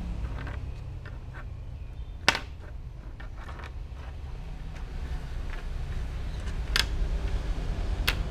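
A plastic ballpoint pen clicking and tapping on a wooden desktop as a kitten paws at it: a few sharp clicks, the loudest about two seconds in and two more near the end, with fainter taps between, over a steady low background rumble.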